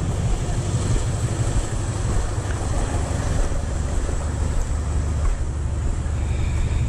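Wind buffeting the camera microphone: a steady, fluttering low rumble with hiss above it.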